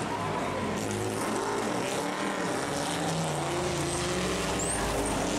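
Several classic racing car engines running at once, their notes rising and falling as the cars work through a corner.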